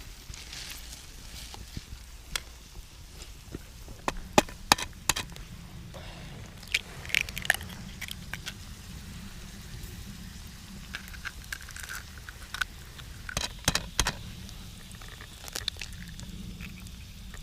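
Campfire cooking sounds: scattered sharp knocks and clicks, loudest in clusters about four, seven and thirteen seconds in, over a steady low rumble.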